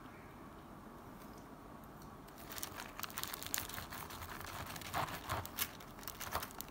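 Knife and fork cutting through the crispy coating of a breaded fried cutlet, crackling and crunching, with the paper liner under it crinkling. The crunching starts about two and a half seconds in, and the loudest crunches come near the end.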